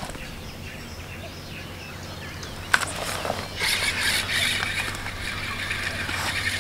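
A single sharp click a little under three seconds in. About half a second later comes the steady rattly whirr of a spinning reel winding in the feeder rig after the fish has come off.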